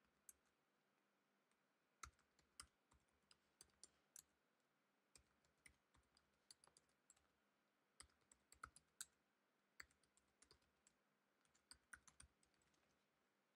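Faint typing on a computer keyboard: sharp key clicks in short, irregular runs with brief pauses between them, stopping a little before the end.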